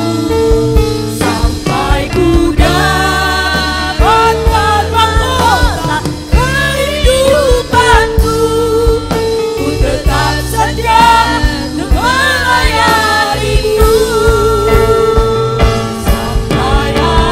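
A church worship song performed live: singing with vibrato over instrumental accompaniment with a steady beat.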